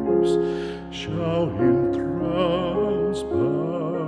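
Background music: a singing voice holding long notes with vibrato over sustained accompanying chords.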